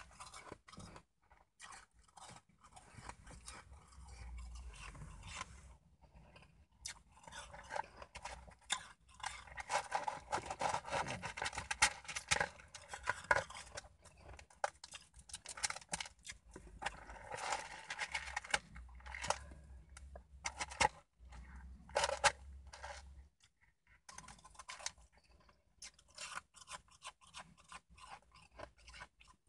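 Shaved ice being bitten and chewed: crisp, crackling crunches that come in dense spells with short pauses between them.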